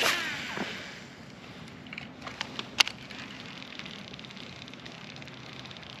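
A fishing rod cast: a swish and fishing line whirring off the reel, falling in pitch as the spinnerbait flies out, followed by a few sharp clicks about two to three seconds in.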